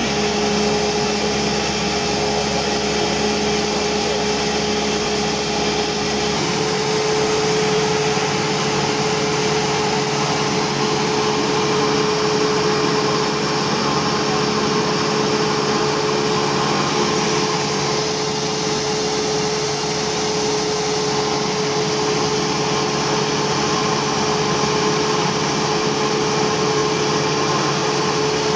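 Cessna 172SP's fuel-injected four-cylinder Lycoming IO-360 engine and propeller running steadily in flight, heard inside the cockpit as an even drone with a constant humming tone.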